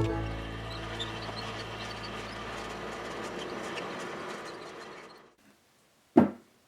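The last chord of a bluegrass backing track rings out and fades away over about five seconds, with faint clicking under it. A single short, loud knock comes near the end.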